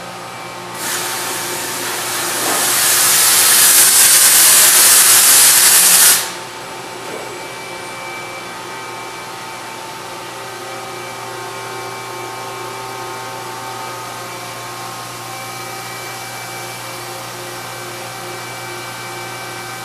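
A loud rushing hiss starts about a second in and cuts off sharply about six seconds in. Under and after it is the steady running hum of a Mori Seiki NT3200 DCG multi-tasking CNC turning-milling center, holding several steady tones.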